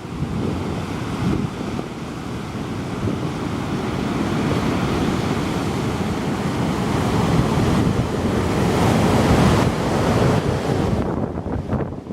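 Black Sea storm surf washing onto the shore, with strong wind buffeting the microphone. The rush of the sea swells to its loudest about three-quarters of the way through, then eases near the end.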